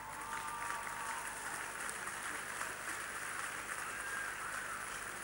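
Audience applauding, a steady patter of clapping with a brief cheer at the start.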